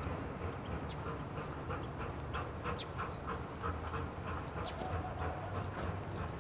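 Replica 1860s steam locomotive working toward the listener, its exhaust chuffing in a quick even beat of about four chuffs a second over a steady low rumble.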